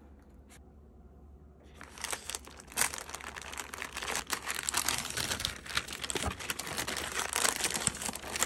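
Crinkling and rustling of wrapping being handled, starting about two seconds in and going on in a dense run of small crackles.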